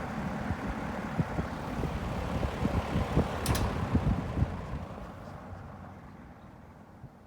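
Sears Kenmore 20-inch box fan running with a fluttering, rumbling whoosh of air. There is a sharp click about three and a half seconds in, and from there its sound dies away gradually as it winds down.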